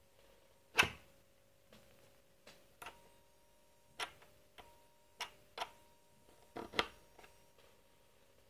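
Irregular sharp clicks and knocks, about half a dozen, the loudest about a second in and another close pair about two-thirds through, over a faint steady hum.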